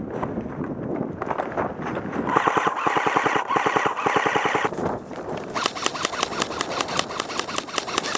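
Airsoft electric guns firing full-auto: two long rapid bursts, the first starting about two seconds in and the second about five and a half seconds in, each a fast stream of shots.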